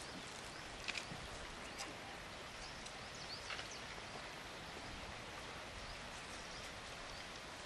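Quiet dry-forest ambience: a steady hiss with a few short crackles of dry leaf litter as lions paw and mouth a rolled-up pangolin, and faint high bird chirps in the middle.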